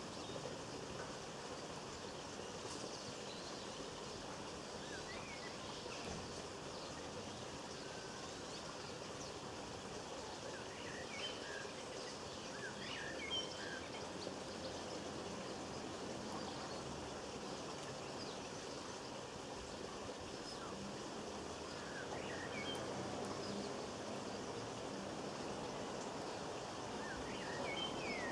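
Small garden birds chirping briefly in a few scattered short bursts over a steady rushing background noise.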